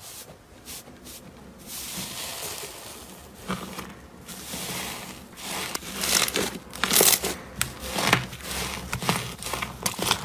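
Hands squeezing, pressing and pulling apart a tub of thick yellow slime over clear green slime, making a crackling, crunching squish. The crackles grow louder and sharper, with distinct pops, in the second half.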